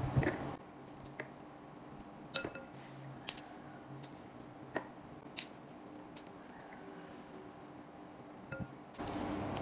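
Bananas being peeled by hand and set into a glass bowl: a scatter of sharp clicks and soft knocks against the glass, the loudest about two and a half seconds in with a brief glassy ring.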